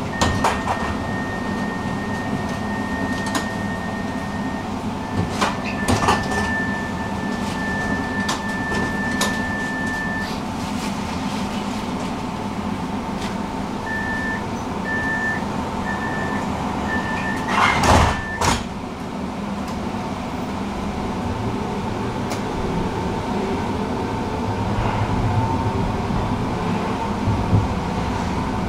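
Tram interior at a stop over the steady hum of the tram's electrical equipment: a steady high electronic tone, then four short warning beeps about a second apart, then the sliding passenger doors shut with a loud thud about two-thirds of the way in.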